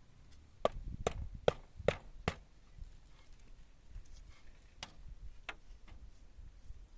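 A series of sharp knocks, like chopping strokes: five in a quick even run, then three fainter ones spaced further apart.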